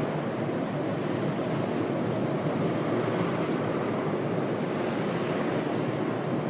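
Ocean surf: waves washing and churning in a steady, dense rush of water noise.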